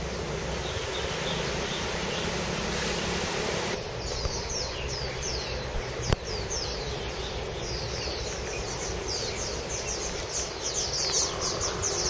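Outdoor wildlife ambience: a steady, insect-like buzzing hiss that stops abruptly about four seconds in, then many short, high chirps, each falling in pitch, coming faster toward the end.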